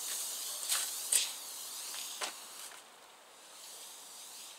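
A steady high hiss that fades out about three seconds in. Over it come three short scuffs or knocks in the first two and a half seconds, as shoes move across a concrete slab while a tape measure is stretched out.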